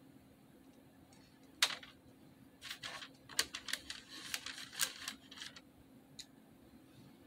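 Light clicks and taps of dry Froot Loops cereal pieces handled and set by hand into a glass bowl. One sharp click comes about one and a half seconds in, then a quick run of small taps and rustles over the next few seconds.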